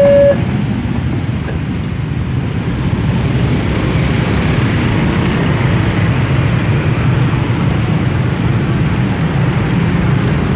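Road traffic at a level crossing: a steady low rumble of motorcycle and car engines, growing a little louder after the first couple of seconds. An alternating two-tone crossing warning alarm cuts off right at the start.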